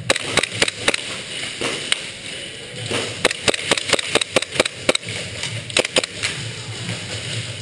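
Airsoft gunfire: sharp cracking shots, a few single ones at first, then a quick string of about five a second, and a short burst about six seconds in.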